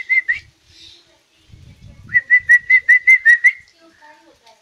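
A man whistling a rapid run of short, even notes at one pitch, imitating a bird call. One run stops just after the start; a second starts about two seconds in and lasts about a second and a half.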